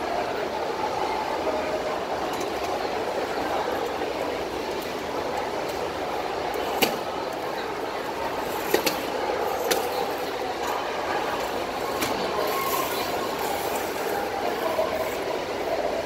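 Steady background hubbub of a crowd, with faint distant voices and a few sharp clicks around the middle.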